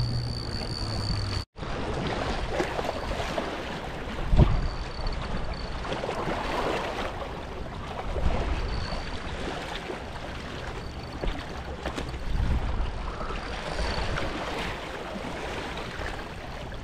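A steady low hum that cuts off abruptly about a second and a half in, then wind and water noise on the river, with a thump about four seconds in.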